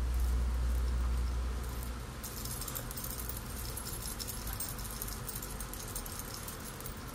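Makeup blending sponge tapped rapidly against the face, a run of quick light pats and clicks with a faint metallic jingle from a charm bracelet on the tapping wrist. A low muffled rumble fills the first two seconds.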